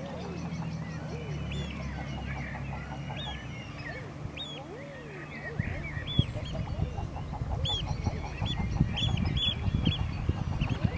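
Waterfowl calling repeatedly, several birds at once, in short arching calls at low and high pitch. From about halfway a rough, crackling low noise comes in and the sound grows louder.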